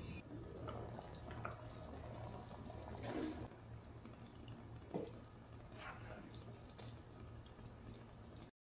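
Faint wet sloshing and a few soft clinks as a ladle stirs and scoops meatballs in thick tomato sauce in a pot, over a steady low hum.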